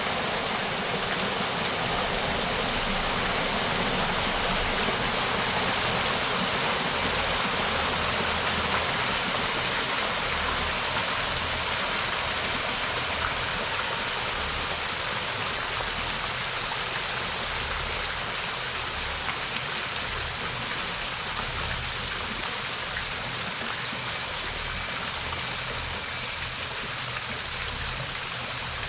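Fountain jet of water splashing down in a steady, even rush, slowly growing a little quieter as the jet loses force.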